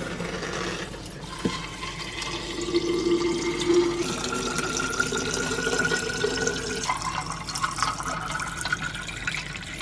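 Filtered water from a kitchen filter faucet running steadily into a stainless steel insulated bottle, with a faint ringing tone that steps up in pitch as the bottle fills.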